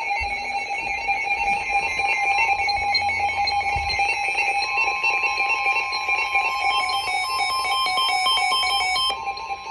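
Weather-radio alert alarm: an electronic alarm sounding steadily with a fast pulsing warble, joined from about halfway by a steady single tone, the warning alarm tone that heralds a new weather-radio warning.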